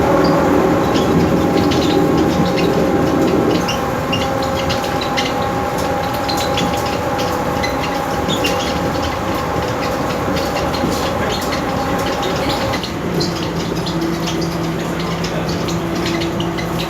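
Miami people-mover train running along its guideway: a steady motor whine with scattered clicks and rattles, the whine dropping to a lower pitch about thirteen seconds in.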